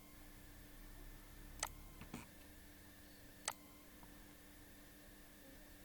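Computer mouse button clicking a few times, spaced one to two seconds apart, as anchor points are placed with Photoshop's pen tool, over a faint steady hum.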